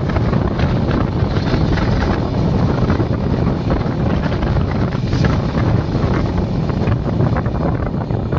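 Wind buffeting the microphone at the open door of a passenger train at speed, over the steady running rumble of the train on the rails.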